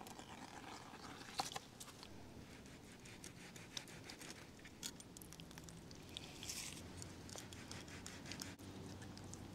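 Faint scraping and cutting as a large kitchen knife works through a sturgeon lying on wooden bench boards, with scattered small clicks, the sharpest about a second and a half in.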